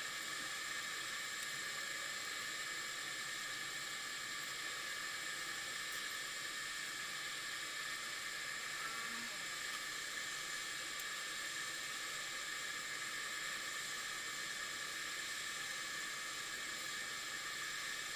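Steady hiss of air with a faint whine: a small electric forge blower running, forcing air into the fire while the blade heats for hardening.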